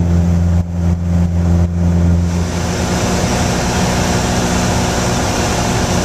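Piper Warrior III's four-cylinder Lycoming piston engine and propeller droning steadily, heard inside the cabin in flight. About two seconds in, the low drone fades into a broader, hissing rush of air and engine noise.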